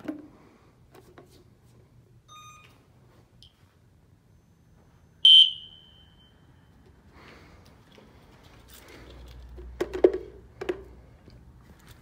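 System Sensor SpectrAlert Classic fire alarm horn gives one short, loud blast about five seconds in. This is the confirmation of a smoke detector activated with a test pole during a walk test. A few handling knocks follow near the end.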